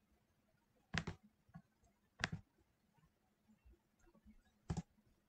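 Three faint clicks from working a computer mouse and keyboard: about a second in, a little over two seconds in, and near the end. Each is a quick double click, over a faint low steady hum.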